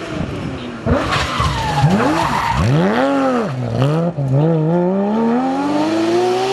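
Porsche 911 GT3 rally car's flat-six engine taken through a tarmac corner at racing speed: the engine note dips and swells as the car slides through the bend with tyres squealing, then climbs steadily in pitch as it accelerates away.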